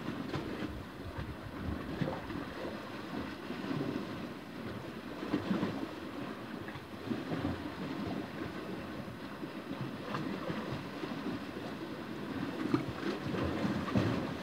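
Small sea waves washing and lapping against a rocky shore in irregular surges, with wind buffeting the microphone.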